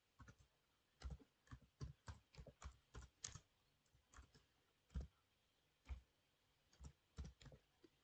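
Faint computer keyboard keystrokes typing out a short phrase: a quick run of clicks for the first three seconds or so, then a few scattered ones.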